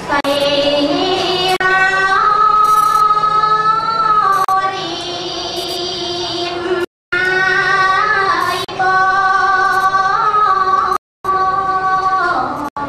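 A woman singing solo into a microphone in long drawn-out notes that slide and waver between pitches. The sound cuts out completely twice, briefly.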